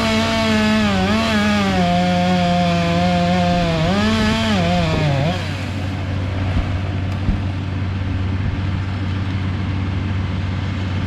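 Chainsaw at full throttle, its pitch dipping and recovering twice, then falling away and stopping about five seconds in. A steady low engine drone carries on underneath.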